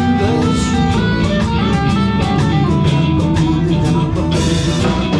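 Live blues-rock band playing between sung lines: electric guitar over bass and a drum kit keeping a steady beat.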